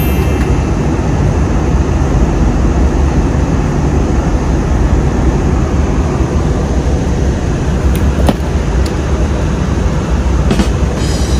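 Steady roar inside an airliner cabin in flight: engine and airflow noise heard at a window seat, heaviest in the low end. A few brief clicks come about two-thirds of the way through.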